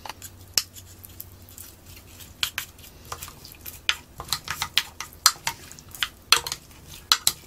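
Two wooden spoons tossing a dressed cucumber, pepper and onion salad in a glass dish, with irregular clicks and knocks of the spoons against the glass, sparse at first and coming thick and fast from a couple of seconds in.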